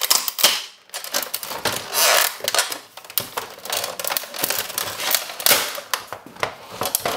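Flathead screwdriver prying at the plastic housing of a Cisco desk phone: a dense, irregular run of sharp plastic clicks, knocks and scrapes as the tip works at the case.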